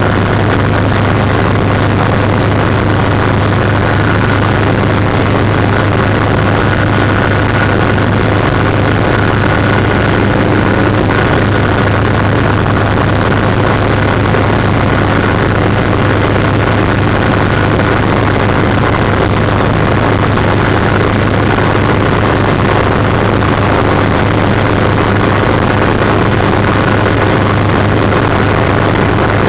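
Helicopter in flight heard from inside the cockpit: a loud, steady drone of engine and rotor, with a thin steady high whine above it.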